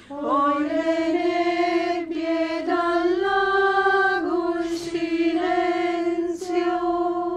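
A cappella choir singing a wordless melody in unison, a single line held on a vowel that steps up and down in pitch a few times, with two short breaks in the middle; the low voices are silent.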